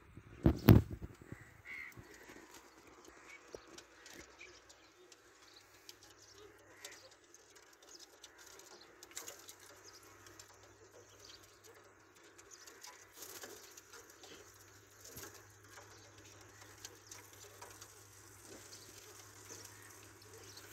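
A loud knock about half a second in, then faint, scattered chirps of caged budgerigars, with a low steady hum from about four seconds on.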